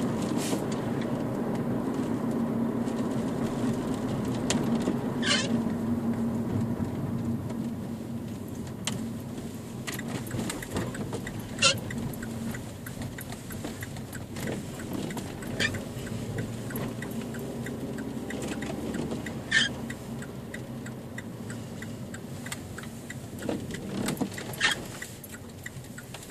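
Car cabin noise while driving: a steady low rumble of engine and road that dies down over the last several seconds as the car slows. A few sharp clicks and rattles stand out above it.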